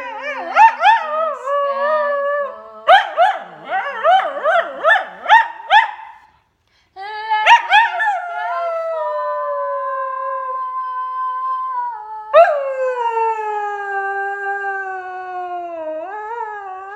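A dog howling. First comes a quick run of short yowls that bend up and down in pitch. After a brief pause come two long howls, each starting high and sliding slowly down.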